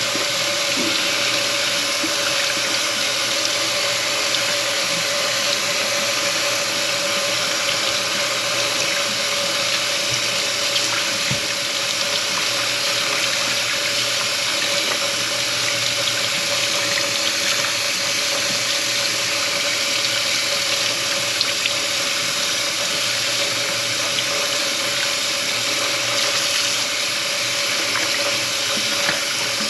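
Kitchen faucet running steadily into the sink, an even rush of water with a steady hum under it.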